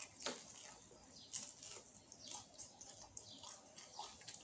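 Faint crunching and wet mouth sounds of chewing a bite of a crispy fried roll, in short irregular crackles.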